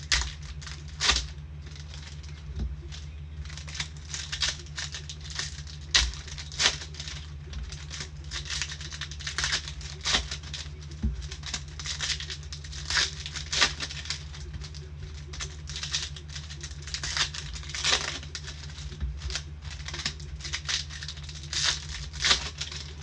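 Trading card packs being opened and cards handled: wrappers crinkling and tearing, cards shuffled and slid, in a run of irregular rustles and snaps over a steady low hum.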